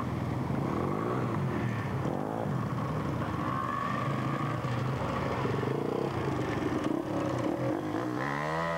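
Small petrol engines running and revving, the pitch rising and falling again and again as a home-built buggy is driven across grass. Near the end a dirt bike revs up close, sweeping up and down in pitch.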